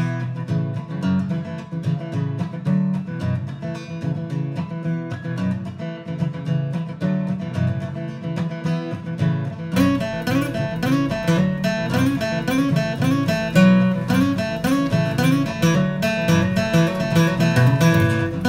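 Background music: acoustic guitar plucking and strumming a steady rhythm, growing fuller with added bass about ten seconds in.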